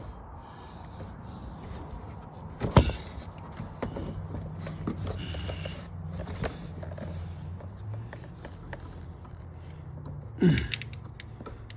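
Knocks and rattles of car body parts being worked loose by hand, with a sharp knock about three seconds in, over a steady low hum.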